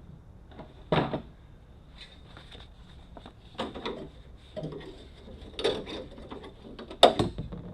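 Sharp plastic clicks and knocks as the retaining clip on a Jeep Wrangler door lock cylinder's linkage rod is pried at and snaps. About five separate clicks, the loudest near the end: the clip breaking.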